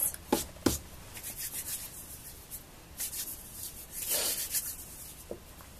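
Light rubbing and rustling sounds, with two small clicks near the start.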